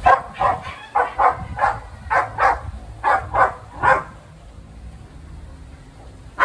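A dog barking in a rapid run of about a dozen short barks over the first four seconds, then falling quiet until it barks again right at the end.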